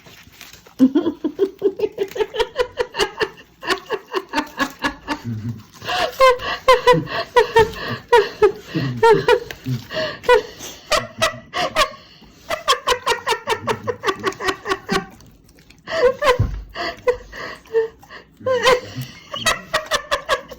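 A woman laughing hard in long runs of quick, repeated ha-ha pulses, broken by a few short pauses.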